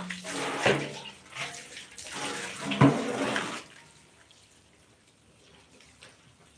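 Water splashing as a large aluminium washing basin is handled and tipped, the basin knocking twice with a brief metallic ring. The splashing stops about three and a half seconds in, leaving only a faint trickle from a garden hose running into a basin of laundry.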